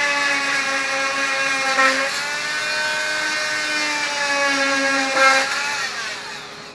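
CNC router spindle running at speed with a steady high whine that dips in pitch twice, then winds down, its pitch falling as it fades near the end.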